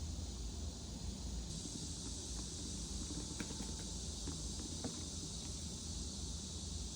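Steady outdoor ambience: a constant high hiss-like drone over a low rumble, with a few faint clicks. The drone gets louder about a second and a half in.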